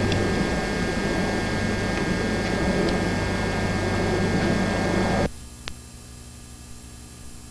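A steady rumbling noise with a constant hum, which cuts off suddenly about five seconds in, leaving only a faint hiss and hum.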